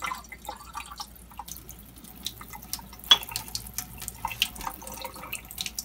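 A thin stream of water from a water ionizer's countertop faucet splashing into a stainless steel sink, with scattered small drips and splatters. One sharper tick comes about three seconds in.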